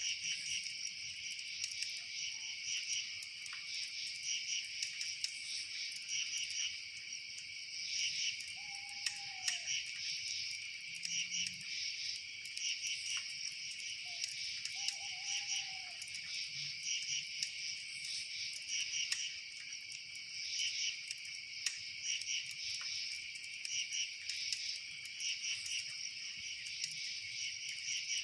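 A dense chorus of crickets chirping steadily in rapid pulsed trills. A few faint, short arched calls are heard twice near the middle, with scattered light ticks.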